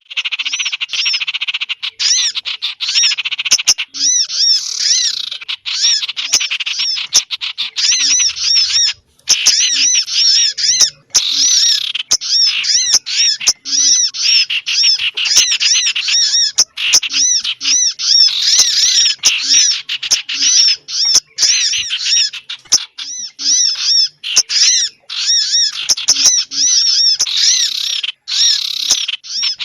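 Recorded small-bird lure call (pikat): a loud, dense, fast chatter of high arched chirps repeating without pause, broken by short gaps and sharp clicks, used to draw small birds in for trapping.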